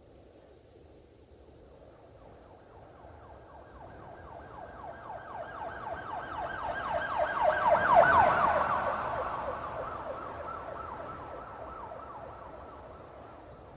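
Police car siren in a fast yelp, rapidly sweeping up and down, passing by: it grows louder to a peak about eight seconds in and then fades away as it drops slightly in pitch.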